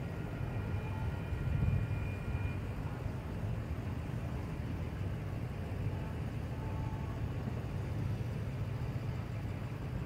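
Steady low rumble of road traffic and idling vehicles at a railroad crossing, with faint high steady tones that die away in the first couple of seconds.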